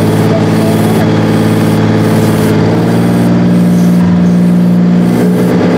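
Detroit Diesel 12V92 V12 two-stroke diesel of a Rite 750 Earthquake tractor running under load while pulling a 20-bottom moldboard plow through the ground. A loud, steady, deep engine drone whose note shifts about three seconds in and again near the end.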